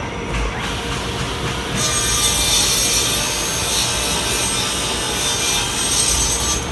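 A workshop tool working wood, a steady harsh hiss that starts about two seconds in and runs for several seconds.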